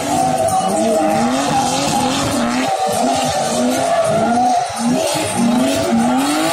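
Drift cars sliding with tyres skidding and squealing. The engine is revved hard over and over, its pitch sweeping up roughly once a second.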